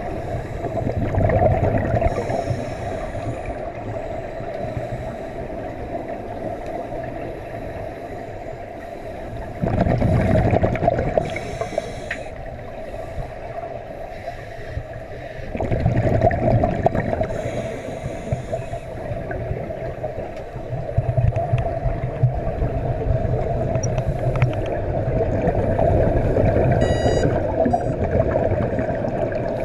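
Underwater sound in a diving pool: scuba divers' regulators releasing exhaled bubbles, a gurgling rumble that swells in loud surges a few times, over a steady hum.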